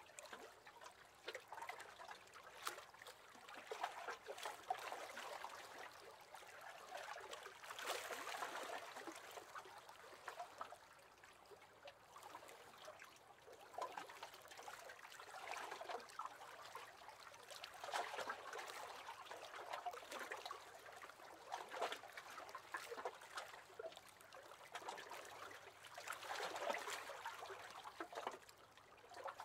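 Small waves lapping against the hull of a wooden rowing boat: quiet, irregular swells of water every couple of seconds, with little splashes.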